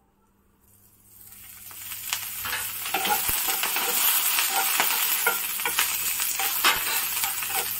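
Cut green chillies sizzling in a nonstick frying pan as a teaspoon of oil heats on them. The sizzle builds up about a second in and then holds steady, with a wooden spatula clicking and scraping against the pan as the chillies are stirred to roast them evenly.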